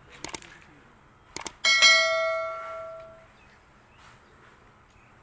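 Subscribe-button overlay sound effect: a couple of quick mouse clicks, two more about a second later, then a single bright notification-bell ding that rings out and fades over about a second and a half.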